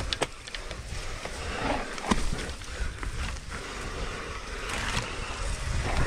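Mountain bike rolling down a rough dirt trail: steady tyre noise and a low rumble, broken by several sharp clicks and knocks from the bike over the bumps.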